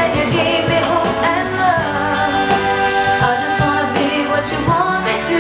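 Background music: a pop song with singing over a steady beat.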